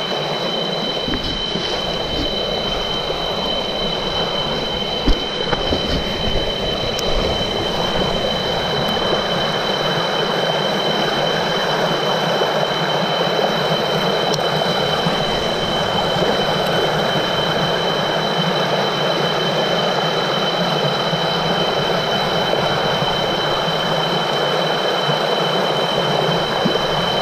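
Shallow rocky stream rapids rushing steadily over boulders, loud and close. A steady high-pitched whine runs under the water throughout.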